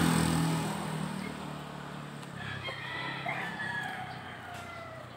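A rooster crowing once, a call of about two and a half seconds starting a couple of seconds in and falling in pitch at its end, while the sound of a passing vehicle dies away.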